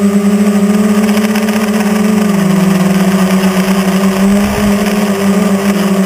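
Quadcopter's electric motors and propellers buzzing steadily at close range, heard from a camera mounted on the craft. The pitch sags slightly a couple of seconds in and then comes back up.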